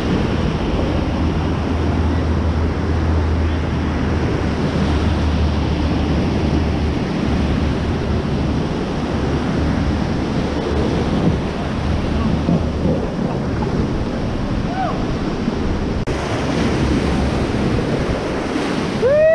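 Whitewater rapids rushing and churning around an inflatable raft, a steady loud roar of water. For the first part, wind buffets the microphone with a low rumble.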